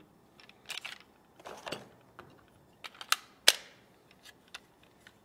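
Smith & Wesson Shield 9mm pistol and its magazines being handled on a counter mat: a series of clicks, knocks and short scrapes. The two sharpest clicks come about three seconds in.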